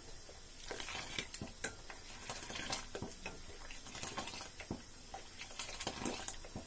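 Steel ladle clinking and scraping against a stainless-steel pot, with irregular light clicks, as hot milk is stirred and ladled up and poured back in.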